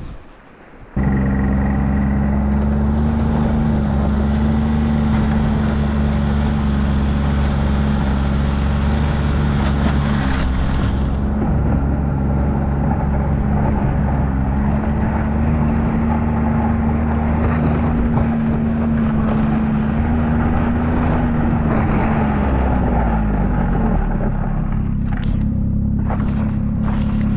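Snowmobile engine running at a steady cruise while towing a loaded sled across the ice. It starts suddenly about a second in, and its note falls as the machine slows near the end.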